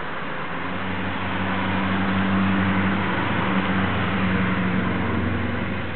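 An engine running with a steady low hum over a hiss. It grows louder from about a second in and eases off near the end.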